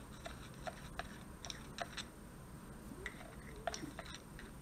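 Faint, irregular light clicks of a screwdriver tip scraping and tapping inside the metal pushrod cup of a clutch slave cylinder as grease is smeared around in it.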